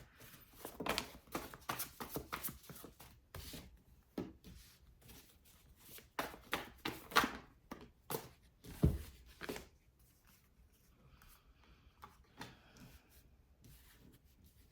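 Tarot cards being shuffled and handled: a run of quick, short clicks and slaps as the cards move, thinning to a few faint taps after about ten seconds.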